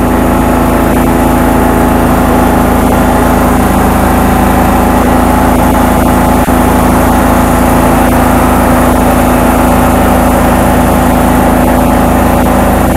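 A machine's engine or motor running steadily at constant speed: a loud, even hum with several steady tones that does not change.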